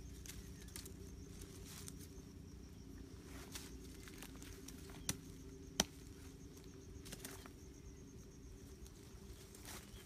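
Quiet handling noises of hands working with small sticks and tools in dry leaf litter: scattered soft taps and rustles, with two sharp clicks a little past halfway, the second the louder.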